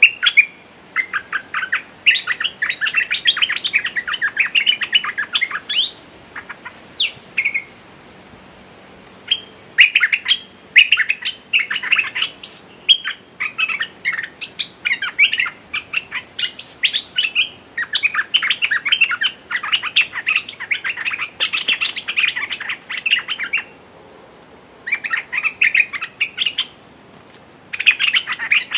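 Bulbuls (นกดอกแตง) calling in quick chattering runs of short, sharp notes, several seconds at a time with brief pauses. This is a caged decoy bird calling at a bird-trapping cage to draw in a territorial wild bird.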